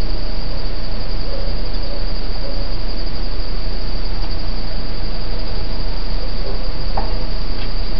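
Steady loud hiss under a continuous high-pitched night insect chorus, with a faint light click about seven seconds in.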